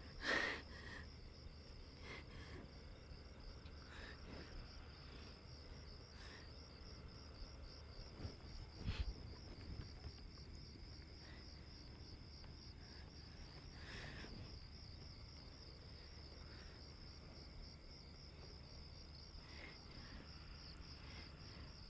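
Crickets chirping in a steady, fast-pulsing trill, faint, with a few soft knocks from movement.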